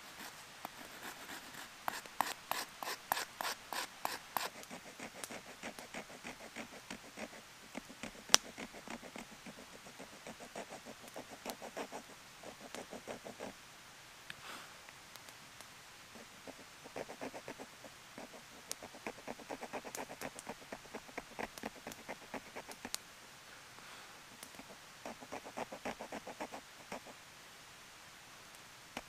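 Narrow carving tool scraping into a pin cherry ocarina blank in runs of short, quick strokes, about three or four a second, with pauses between runs. A single sharp click about eight seconds in is the loudest sound.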